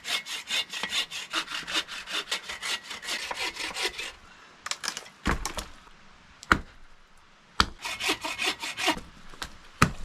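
Hand saw cutting through a wet log with fast, even back-and-forth strokes for about four seconds. A pause with three sharp knocks of wood follows, then a shorter burst of sawing and another knock near the end.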